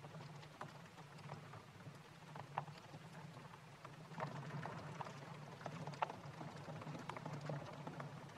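Wet water beads (Orbeez) being pressed and stirred by hand in a glass dish of water: a scattered run of soft clicks, squelches and small splashes, with a few sharper clicks, over a low steady hum.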